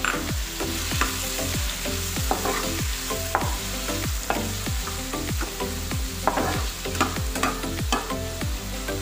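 Marinated pork pieces sizzling in oil in a frying pan, stirred and scraped around with a metal turner. Background music with a steady beat plays underneath.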